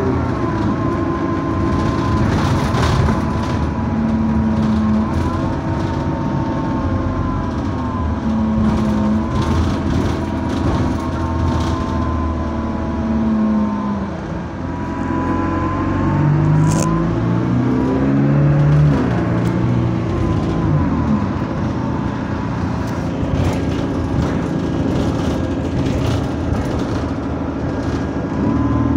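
Alexander Dennis Enviro200 bus engine heard on board, revving up and falling back again and again as the bus pulls away and slows. A rising and falling whine rides above the engine note. This distinctive sound has been fixed on most other E200s.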